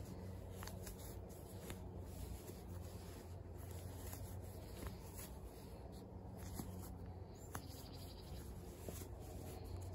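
Crochet hook pulling chunky t-shirt yarn through stitches in single crochet: faint rubbing and scratching of the yarn, with a few soft clicks. A low steady hum sits underneath.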